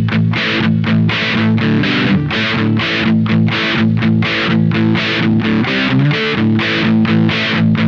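Electric guitar played through a Witchcraft distortion/preamp pedal, a heavily distorted riff of fast repeated picked chords, about four strokes a second, over sustained low notes.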